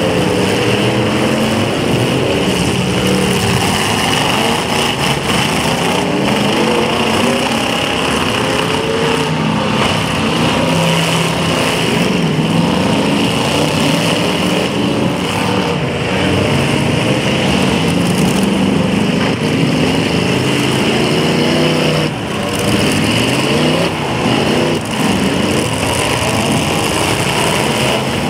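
Several demolition derby cars' engines revving at once, their pitches rising and falling over one another without a break.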